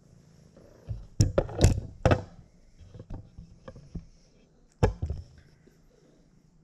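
Knocks and thuds right at the microphone as hands and a cat bump the floor-level camera: a cluster of sharp thuds about a second in, lighter taps around three to four seconds, and another sharp knock near five seconds.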